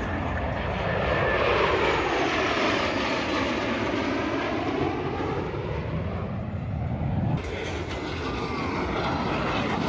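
Airplane engine at an air show, a steady rushing drone that grows louder over the first two seconds and then slowly fades, with sweeping shifts in tone as the aircraft passes. The sound changes abruptly about seven seconds in, as at an edit.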